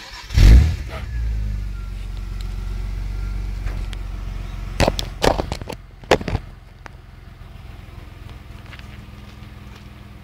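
The 3.0-litre VQ30DE V6 of a 2001 Infiniti I30 breathing through a Dynomax Super Turbo muffler, its only exhaust change: the engine starts with a loud burst and settles into a steady idle. A few sharp clicks come about five to six seconds in, after which the idle runs quieter.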